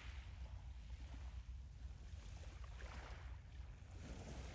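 Wind buffeting the microphone over choppy harbour water: a steady low rumble with brief rushes of hiss around three seconds in and again near the end.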